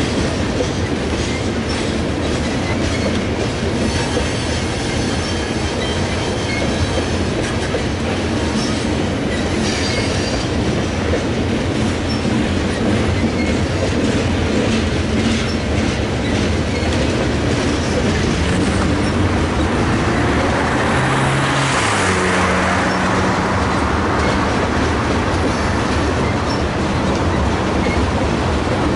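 Covered hopper cars of a freight train rolling slowly past close by: a steady rumble and clatter of steel wheels on the rails, with a stretch of louder, harsher rolling noise about twenty seconds in.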